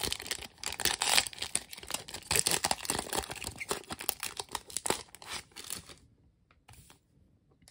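Trading card booster pack wrapper being torn open and crinkled, a dense run of crackling that stops about six seconds in, followed by a couple of faint rustles.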